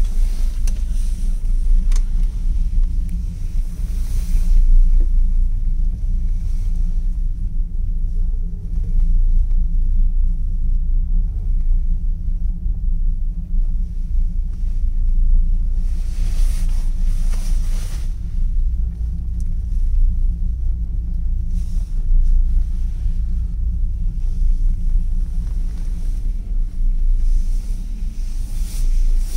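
Steady low rumble inside a moving ropeway cable car cabin, with a few brief swells of hiss along the way.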